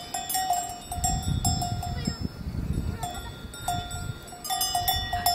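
Cowbells on the neck straps of cows at a fence, clanking at an uneven rhythm as the animals move, each strike ringing on the same note.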